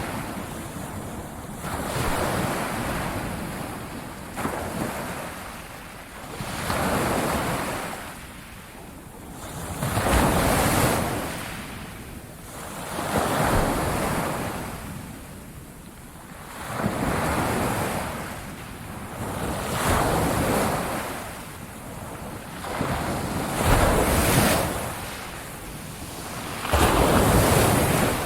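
Ocean surf breaking on a beach: a wash of water that swells and recedes about every three seconds.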